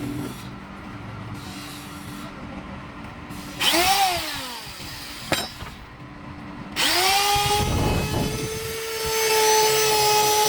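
An electric power tool motor spins up and winds straight back down in about a second. A sharp click follows, then the motor starts again about three seconds later and runs steadily at a high whine.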